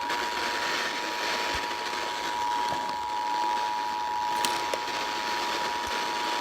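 Emergency Alert System two-tone attention signal, 853 Hz and 960 Hz sounded together as one steady dual-pitched tone, heard over FM radio hiss that comes up as it begins. It is the alert tone that precedes a new warning broadcast, here a severe thunderstorm warning.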